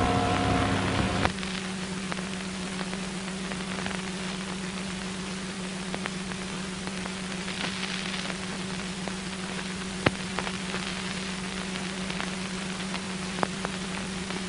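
Steady hum and hiss of an old film soundtrack with scattered clicks and pops; a passage of music cuts off about a second in.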